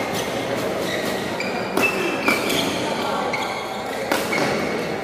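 Badminton rally in a sports hall: rackets smack the shuttlecock three times, twice in quick succession about two seconds in and again at about four seconds, as a player jumps to smash. Short high squeaks of court shoes on the floor and a murmur of spectators carry on in the background.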